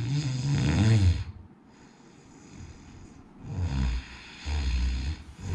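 A person snoring: a long pitched snore that rises in the first second, then two shorter, deeper, rougher snores past the halfway mark.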